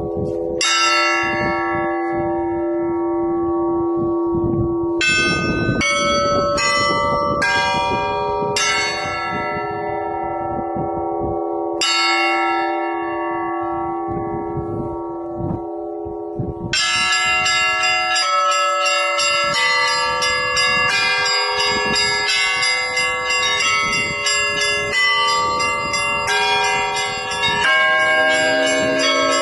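Orthodox church bells ringing (kolokolny zvon): a handful of separate strikes, each left to ring out, then a little past halfway a rapid, continuous peal of many bells struck together.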